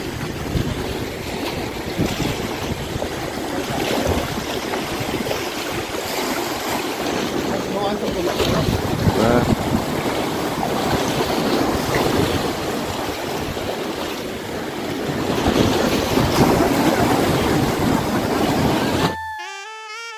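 Sea waves washing and splashing against the rocks of a stone breakwater, in surges, with wind buffeting the microphone. About a second before the end it cuts off suddenly and music starts.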